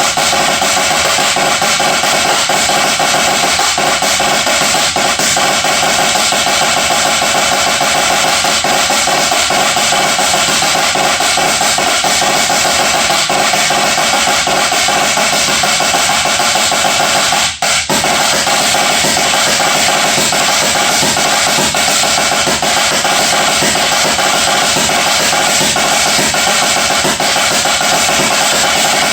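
Drum kit played as a solo: a dense, continuous stream of fast strokes with a momentary break about halfway through.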